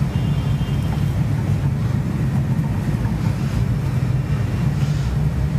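A steady low droning hum with no distinct events.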